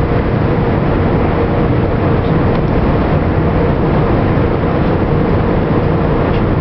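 Steady, loud machinery rumble with a constant hum, typical of a ship's engines or generators running.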